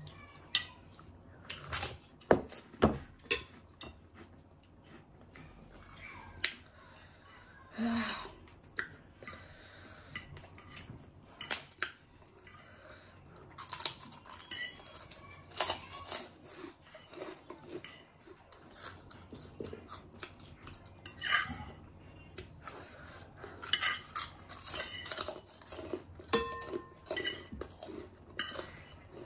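Forks and spoons clinking and scraping on plates in irregular taps while people eat, with chewing between the clinks.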